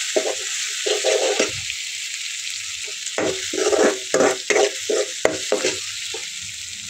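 Chopped onions sizzling steadily in hot oil in an aluminium kadhai, stirred with a steel spoon that scrapes against the pan in quick irregular strokes through the first second and a half and again from about three to six seconds in.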